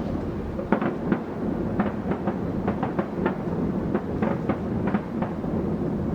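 Aerial fireworks bursting: a string of sharp bangs and crackles, about a dozen in six seconds, over a continuous low rumble of booms.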